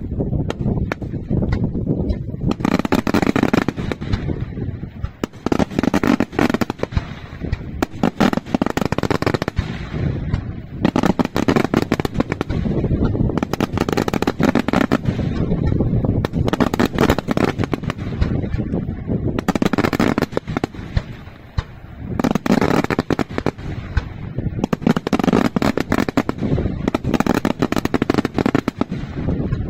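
Daylight fireworks display: aerial shells bursting in rapid, continuous volleys of bangs and crackling, with louder flurries coming in waves every few seconds.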